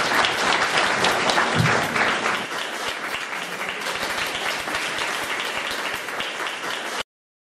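Audience applauding, a little softer after about two and a half seconds, then cut off abruptly near the end.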